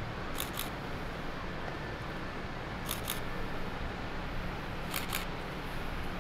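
Camera shutter firing three times, each release a quick double click, spaced about two seconds apart over steady low background noise.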